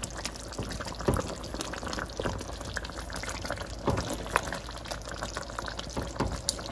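Thick meatball curry simmering and bubbling in a nonstick pan, with scattered soft taps and scrapes as a silicone spatula turns the meatballs in the gravy.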